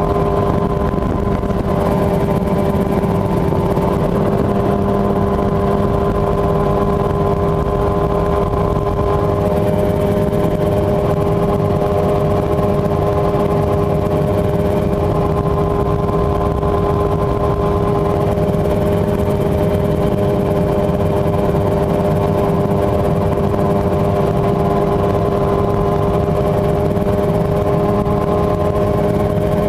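Mosquito XE single-seat kit helicopter in flight, its engine and rotor running steadily at constant speed: a loud, even drone with several steady tones.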